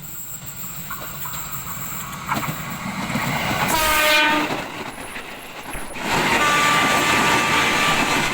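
KRL electric commuter train approaching, sounding one short horn blast about four seconds in, then running past close and loud with wheel-on-rail noise and a steady whine.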